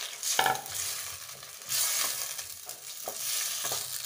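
Water sizzling in a pan of hot spiced cauliflower and potato, with a wooden spatula stirring and scraping in the pan. The sizzle swells briefly about two seconds in.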